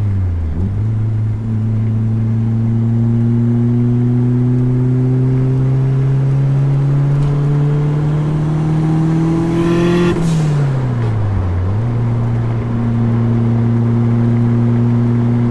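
Mk2 Volkswagen Golf GTS's four-cylinder engine pulling in gear, its note rising slowly for about nine seconds. The note drops at a gear change about ten seconds in, then holds steady. Another shift falls right at the start.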